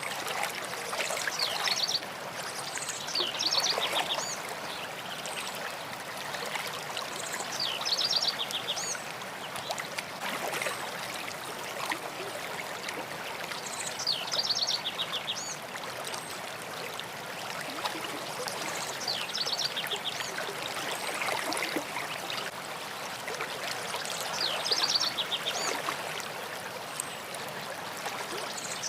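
A stream of water running and trickling steadily, while a bird sings a short phrase of rapid high notes again and again, every few seconds.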